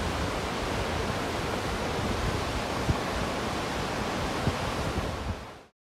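Steady rushing of Takakkaw Falls, a tall mountain waterfall, with a few short low thumps of wind on the microphone. The sound fades out quickly about five and a half seconds in.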